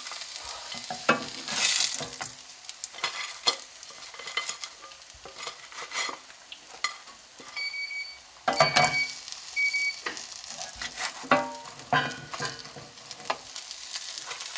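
Frozen vegetable dumplings sizzling in oil in a frying pan, with a utensil repeatedly scraping and knocking against the pan. Three short electronic beeps sound about halfway through.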